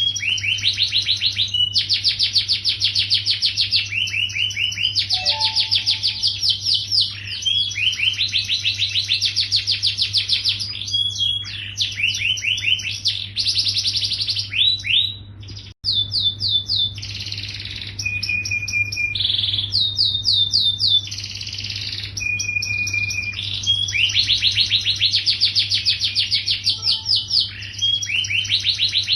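Yellow domestic canary singing nonstop. It runs one rapid rolling trill and repeated chirp phrase after another, with a brief break about halfway through.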